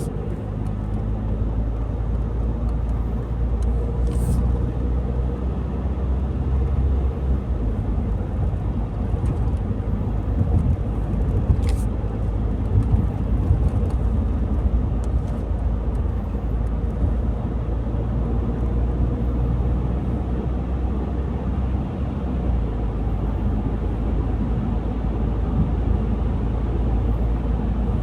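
A car driving along a road: steady low engine and tyre rumble, with a few faint brief clicks.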